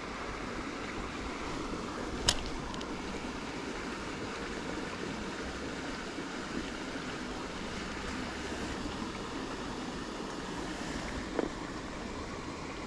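Small stream rushing over a little cascade and riffles: a steady watery hiss. A sharp click about two seconds in, and a fainter one near the end.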